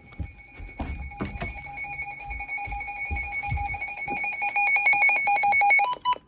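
Electronic emergency alert tones: steady high tones that grow louder and, about a second before the end, break into a rapid on-off chatter before cutting off suddenly. Faint low rumbles and clicks sit underneath.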